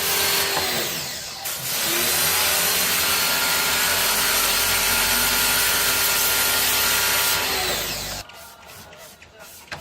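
A motor-driven machine running with a loud, steady rushing hiss over a hum. It dips briefly about a second and a half in and cuts off suddenly about eight seconds in.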